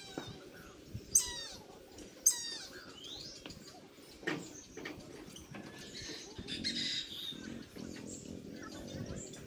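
Brahminy kite calling: two short, quavering calls that fall in pitch, about a second apart, near the start.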